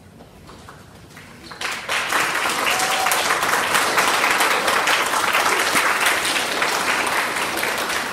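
Audience of schoolchildren applauding: a dense round of clapping that starts sharply about a second and a half in, holds steady, and begins to fade near the end.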